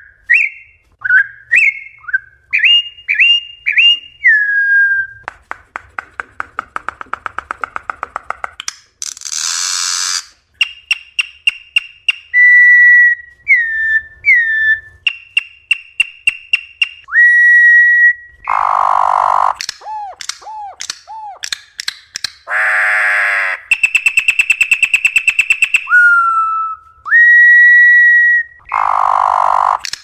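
Campo troupial (corrupião) singing a long, varied song: clear whistled notes gliding up and down, rapid rattling trills and fast ticking runs, broken by several harsh, raspy calls about a second long.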